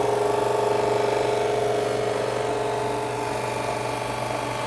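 Drill press running steadily with a cloth buffing wheel in its chuck, the spinning wheel pressed against a lacquered wooden instrument body to polish the finish with buffing compound: an even motor hum and whir.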